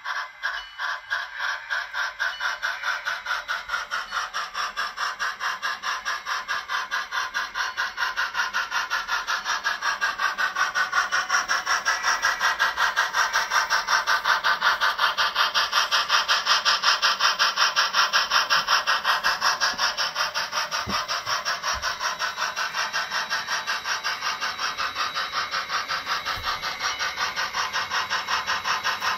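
On30 model steam locomotive running with steam sound: a rapid, even chuff of several beats a second, loudest in the middle as the engine comes close.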